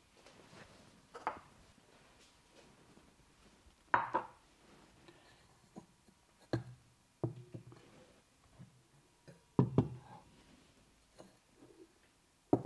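Percussive massage strikes on the body: about seven sharp, irregular knocks and slaps, the loudest about four seconds in, twice in quick succession near ten seconds, and one at the very end.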